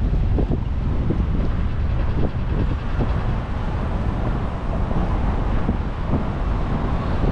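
Wind buffeting the microphone of a camera riding along on a moving bicycle: a steady low rumble.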